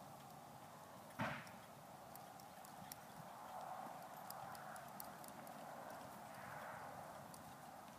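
Faint sounds of a ridden horse moving at a walk on soft arena dirt, with one sharp thump about a second in and a few light clicks later.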